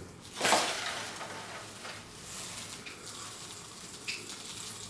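Dry bird-seed mixture rattling and rustling as it is handled in a plastic feeder cup, with a sharp clatter about half a second in, then a steady grainy rustle.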